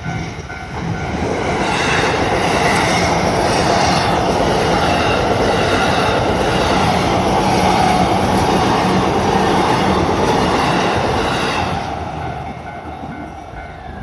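A JR Saikyo Line E233-series electric commuter train passes close by over the level crossing. Its wheels and running gear build up over about two seconds, stay loud for about ten seconds, then fade away. A level-crossing bell rings steadily underneath.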